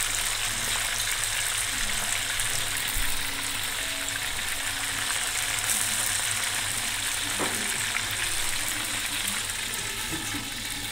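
Fish deep-frying in hot oil in a steel wok: a steady sizzle.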